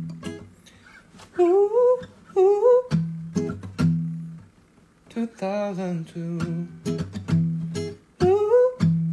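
Steel-string acoustic guitar played fingerstyle, with sharp percussive slaps on the strings over ringing bass notes. A voice hums short wordless rising phrases over it, twice early on and again near the end, with a longer phrase in the middle.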